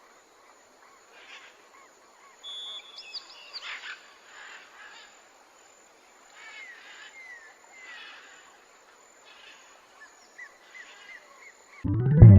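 Faint bird chirps and short calls over quiet outdoor ambience. Loud music starts near the end.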